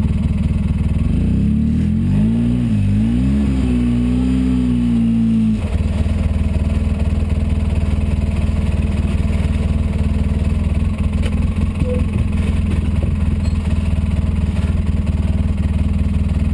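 Polaris RZR 800 side-by-side's twin-cylinder engine revving up and down on the trail for the first few seconds. About five and a half seconds in it drops abruptly to a steady low running note.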